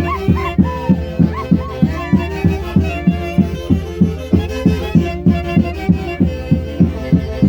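Live Andean folk orchestra music: a violin melody with vibrato over a steady pulsing beat of about two strokes a second.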